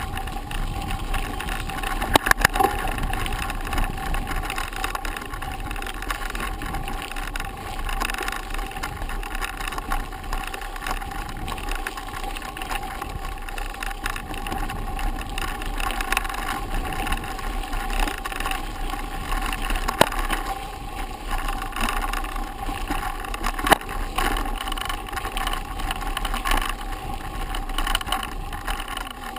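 Mountain bike rolling along a rough dirt forest track, with steady rolling and rattling noise from the bike. A few sharp knocks come from bumps, the loudest about two seconds in and again near the end.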